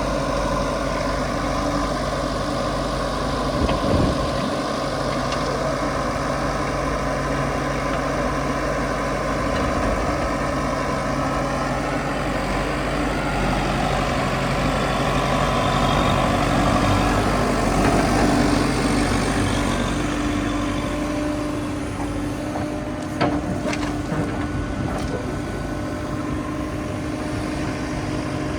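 A heavy machine's diesel engine runs steadily, working a little harder for a few seconds around the middle. A couple of short knocks sound over it, one early and one later on.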